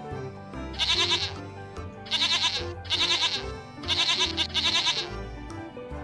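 Goats bleating: five loud, wavering bleats, each about half a second long, coming in quick succession over background music.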